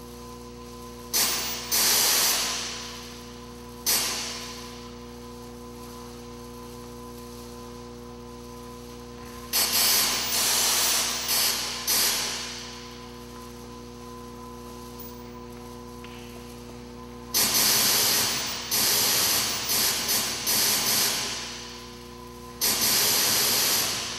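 Sampled electronic sounds triggered by an acceleration sensor on a dancer's arm: hissing noise bursts that start suddenly and fade away over a second or so, coming in several clusters. A steady electronic hum runs underneath.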